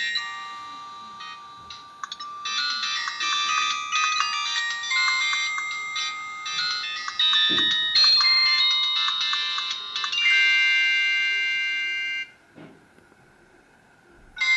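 Polyphonic MIDI ringtone from a Samsung SCH-A610, rendered by an Alcatel 2053D phone's MIDI synthesizer. The tune stops about twelve seconds in, and another ringtone begins after a short pause near the end.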